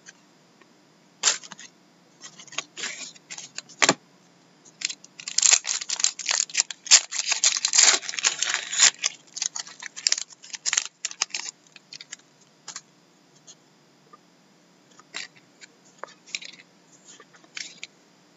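Foil wrapper of a hockey trading-card pack being torn open and crumpled, a few seconds of dense crinkling and crackling starting about five seconds in. Before and after it come scattered light clicks and rustles of cards being handled and flipped.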